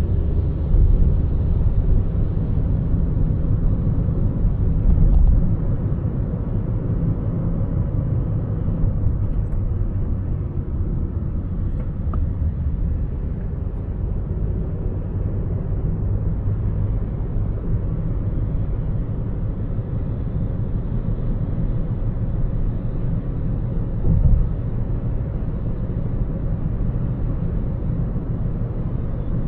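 A car driving on a city road: a steady low rumble of road and driving noise, with a few brief louder swells.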